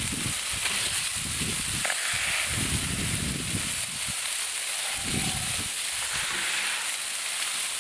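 Ground beef patties sizzling on a hot propane flat-top griddle as meatballs are smashed flat under a burger press, a steady hiss with a few dull low rumbles.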